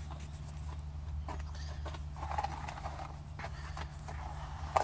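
Scattered light knocks and clicks from handling, over a steady low hum; the loudest knock comes near the end.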